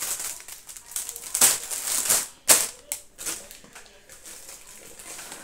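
Plastic shopping bags and packaging rustling and crinkling as groceries are rummaged through, with a few sharper crackles.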